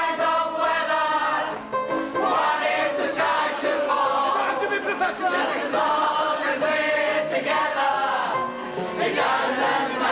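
A mixed group of voices singing an old music-hall song together in chorus, to upright piano accompaniment.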